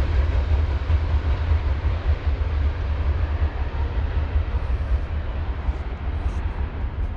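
Freight train, a coal drag, rolling past: a steady rumble of freight cars that slowly fades toward the end.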